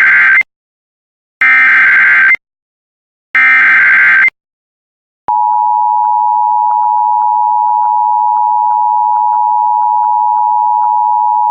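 Emergency Alert System SAME header: the end of one short, harsh digital data burst and then two more, about a second apart. After a short gap comes the EAS two-tone attention signal, a steady loud pair of pitches, marking the start of a broadcast emergency alert for a tornado warning.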